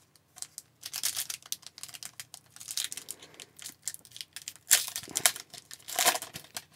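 Foil wrapper of an Upper Deck hockey card pack crinkling in the hands and being torn open at the top, in irregular crackling bursts with the loudest rips near the end.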